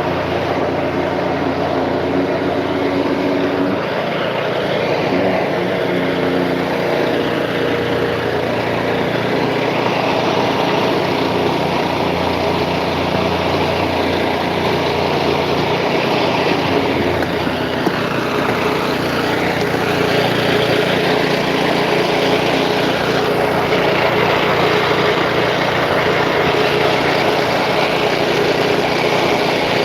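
Engine of concrete-pouring machinery running steadily, a continuous mechanical drone with no break.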